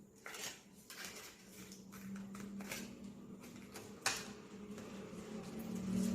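Sheets of paper being handled and pressed down on a table: scattered light taps and rustles, the sharpest about four seconds in, over a faint steady hum.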